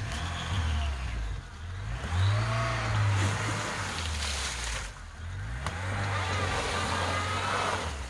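Lada Niva 21214's four-cylinder engine revving up and down several times as the car rocks forward and back in a creek, its wheels spinning and throwing up water and mud with a rushing splash during the hardest revs.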